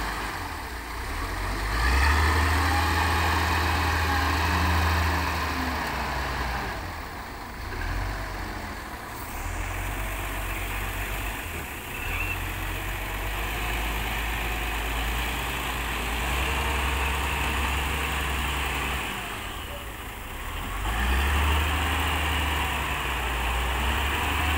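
TCM 45 wheel loader's diesel engine running, revving up and dropping back several times as the machine drives and works its bucket.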